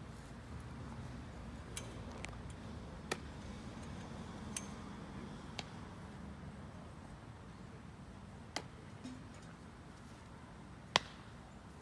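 Softball practice heard through a steady low outdoor hum: about seven sharp, isolated knocks and pings of bats meeting softballs and balls smacking into gloves, the loudest near the end.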